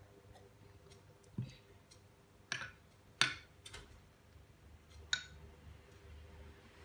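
Metal spoon clinking against a ceramic bowl as curry is stirred and scooped: four or five sharp separate clinks, the loudest a little past the middle, after a duller knock about a second and a half in.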